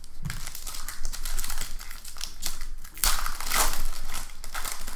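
Foil wrapper of a football trading card pack crinkling as it is handled and torn open, loudest about three seconds in.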